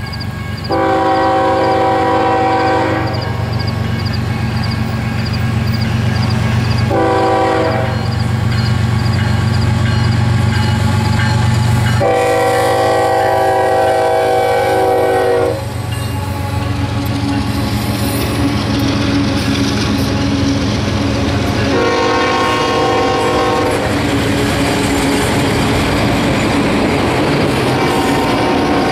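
Union Pacific freight train's diesel locomotives (a GE C45ACCTE leading, a GE C40-8 second) passing with the deep engine rumble, while the air horn sounds a series of blasts: a long one, a short one, a longer one, then two more later. From about halfway, steel wheels clatter and rush past as the autorack cars roll by.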